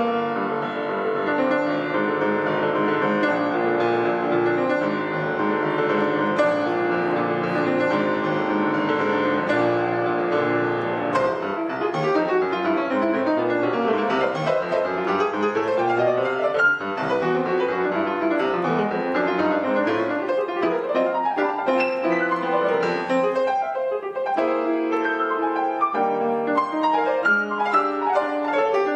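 Solo grand piano improvisation. It opens with sustained chords, and from about eleven seconds in it moves into fast runs that climb and fall across the keyboard.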